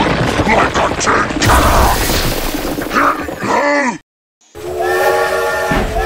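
Sound effects in an edited soundtrack: dense crashing noise, then a pitched slide downward that cuts off into a short silence about four seconds in. Near the end, a steady chord of several held tones comes in.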